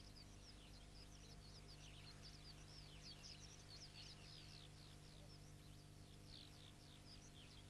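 Faint twittering of a flock of small birds: many short, quick downward chirps, several a second, over a steady low hum.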